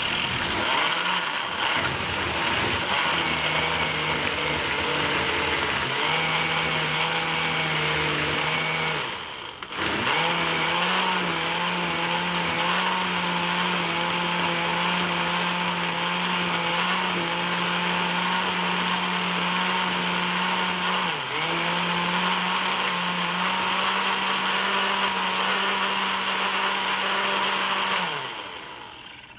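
Countertop blender running under load, pureeing raw chicken livers and sardines into a smooth liquid. The motor stops briefly about a third of the way in, starts again, and winds down near the end.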